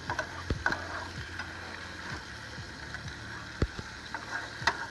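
Metal spatula tapping and scraping in a frying pan on a two-burner propane camp stove: a few sharp clinks scattered over a steady hiss and low hum.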